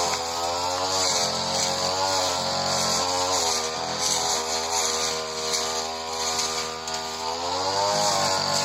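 Supra SPR328 brush cutter engine running under load while cutting tall grass, its speed wavering, dipping and picking back up several times, with a rise near the end.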